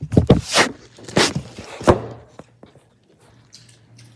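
Handling noise from a phone that is being picked up and turned: a few loud thunks and rubs on its microphone in the first two seconds, then quieter.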